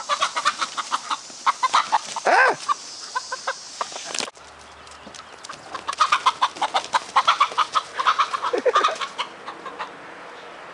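Chickens clucking rapidly and excitedly as the dog chases them, with a louder squawk about two seconds in and another near the end. The clucking breaks off abruptly after about four seconds, then picks up again.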